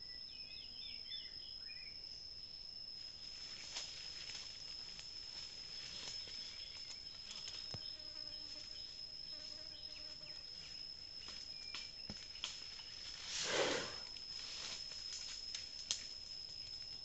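A steady high-pitched insect drone from the forest, with scattered small snaps and one brief, louder rustle of foliage about 13 seconds in as an elephant moves and feeds in the undergrowth.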